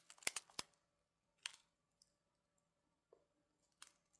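Mostly near silence, with a few faint clicks and crinkles of small plastic bags of diamond-painting drills being handled. The loudest click comes about a second and a half in.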